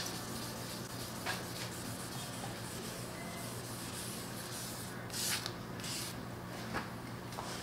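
Sandpaper being rubbed by hand over a Honda S2000's plastic headlight lens while wet-sanding it to clear the hazing: a soft scratchy hiss of back-and-forth strokes, with one louder stroke about five seconds in, over a steady low hum.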